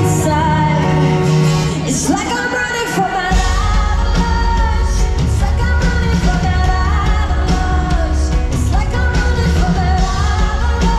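Live pop-punk band with a female lead singer, heard from inside the crowd in a large hall. The bass and drums come in heavier about three seconds in.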